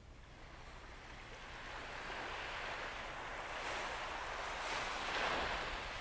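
A small wave breaks and washes up the sand of a calm beach. The hiss swells over a few seconds, is loudest about five seconds in, then eases off.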